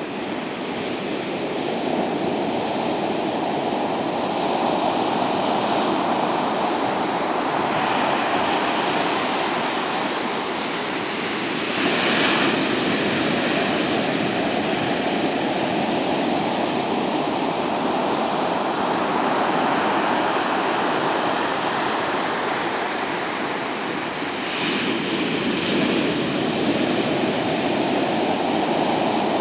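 Atlantic surf breaking on a sandy beach and washing up the shore: a continuous rushing wash, with louder crashes of breaking waves midway and again near the end.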